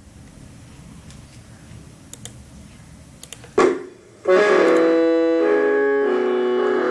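Low handling rumble with a few light clicks, then a loud knock about three and a half seconds in. From just past four seconds an electronic keyboard plays loud held chords that change every second or so, the introduction to a song.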